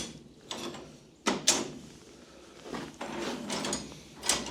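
Steel blacksmith's tongs clanking together as they are picked up and handled in a pile. There are several sharp metal knocks: two close together around a second and a half in, a rattle of clatter around three seconds in, and another clank near the end.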